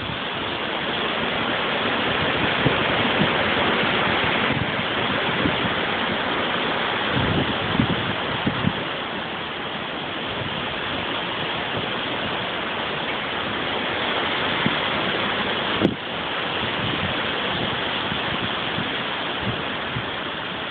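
Gale-force wind rushing through tall gum and pine trees, a steady loud hiss of thrashing foliage that swells and eases with the gusts. Gusts buffet the microphone with low thumps around eight seconds in, and a single sharp click comes about three-quarters of the way through.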